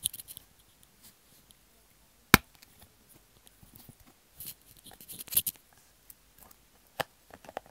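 Close handling noises at a microphone being brought to a glittery clear slime: one sharp knock about two seconds in, the loudest sound, then scattered crackles and small clicks as the slime is squeezed.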